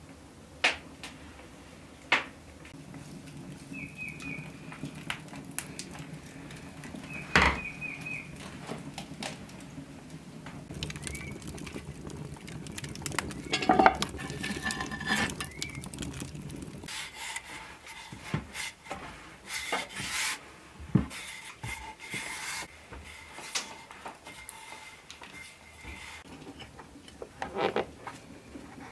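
Kitchen handling sounds: scattered taps and knocks of pastry work and dishes, then a metal poker scraping and knocking through hot coals in a metal fire pan about halfway through. Near the end come the clicks of a fluted metal tart cutter pressed into rolled pastry dough.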